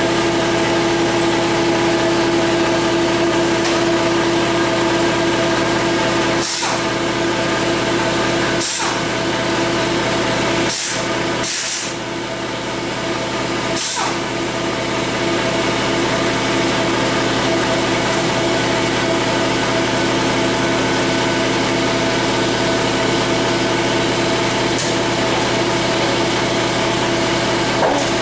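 A garage heater's blower runs with a steady hum. Five short, sharp metal clicks of hand tools on the transmission case sound between about six and fourteen seconds in.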